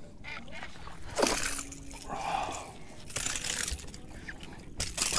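Hooked small bass splashing at the water's surface as it is reeled up to the boat, in several short splashes.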